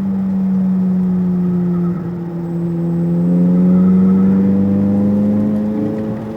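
Corvette Z06's V8 engine running hard at speed on a track lap, its pitch dipping briefly about two seconds in, then climbing steadily as it accelerates and easing off slightly near the end.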